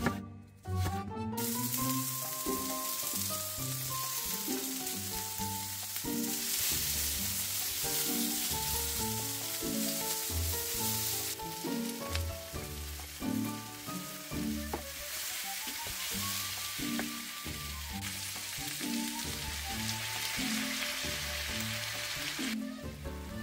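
A few knife chops on a wooden cutting board, then onion and red bell pepper strips sizzling as they fry in a pan. About halfway through, browned beef strips are tipped back into the pan and the sizzle goes on. Background music plays throughout.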